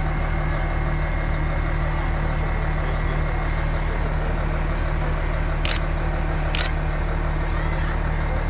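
Diesel engine of a truck-mounted mobile crane running steadily, powering the crane as it holds a suspended yacht hull. Two sharp clicks a second or so apart about two-thirds of the way through.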